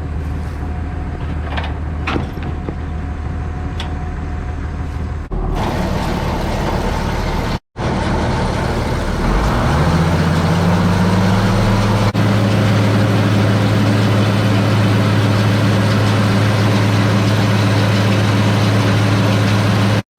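Tractor engine running steadily. After a brief break about eight seconds in, it picks up speed and settles into a louder, steady run.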